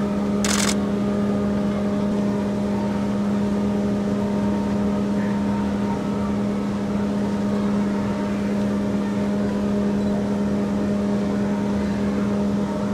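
Steady low mechanical hum that holds one pitch without change, with a short hissing burst about half a second in.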